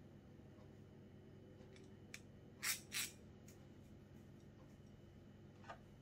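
Small steel parts (washers, a ball bearing and a nut on a threaded rod) clicking and clinking as they are handled. There are a few light clicks, the two loudest close together about three seconds in, and one faint click near the end.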